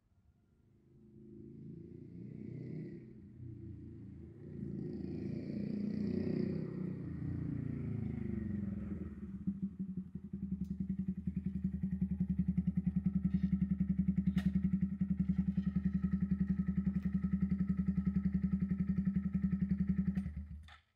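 Honda Monkey 125's single-cylinder four-stroke engine, breathing through an Akrapovič exhaust with its aftermarket header pipe, comes closer with rising and falling revs, then settles into a steady, evenly pulsing idle. The engine stops suddenly near the end.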